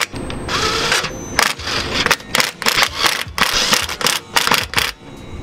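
Lug bolts being run in on a car's wheel with a hand-held tool: a series of short bursts of rattling mechanical clicks with brief pauses between them.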